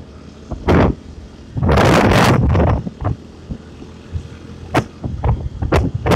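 Wind buffeting the microphone of a riding motor scooter in irregular thumping gusts, the longest about a second and a half in, with the scooter's engine running faintly underneath.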